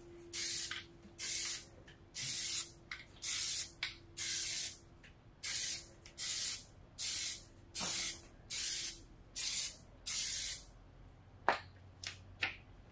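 Aerosol can of Plasti Dip rubber coating spraying in short hissing bursts, about a dozen, roughly one a second, laying the fourth and final heavy coat onto a wheel rim. Two light knocks near the end.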